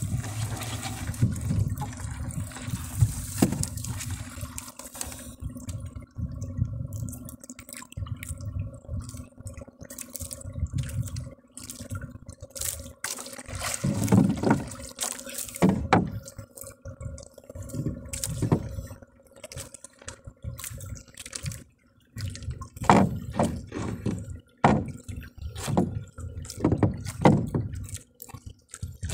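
Water splashing and sloshing at the side of a small wooden fishing boat, with irregular knocks and rubbing as fishing line is hauled in and handled on board. The knocks and splashes come more often in the second half.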